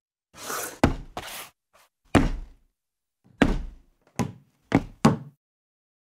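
A series of about six sharp thuds, each dying away quickly. Two brief scraping swishes come first, in the first second and a half.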